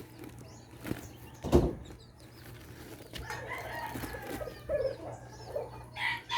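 Rooster crowing in one long drawn-out call starting about three seconds in, preceded by a single thump about a second and a half in.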